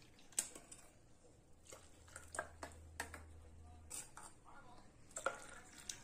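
Stainless-steel tumbler and cup clinking faintly as hot milk is poured back and forth between them to cool it; a dozen or so light, scattered taps.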